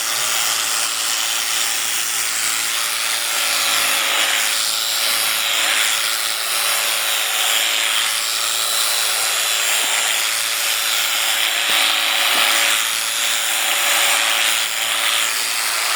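Electric sheep shears running steadily while shearing a sheep: a constant motor hum under a rasping buzz from the cutting head.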